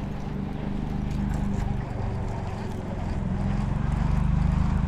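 A steady low engine hum with a fast, even ticking, getting somewhat louder in the second half.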